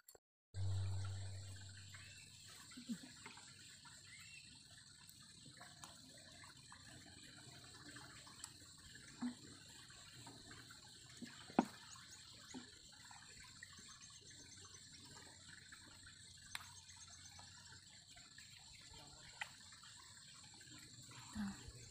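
A plastic water bottle being handled, with soft crinkles and clicks and a little water moving inside it, over a steady high-pitched whine. A brief low thump about half a second in is the loudest sound.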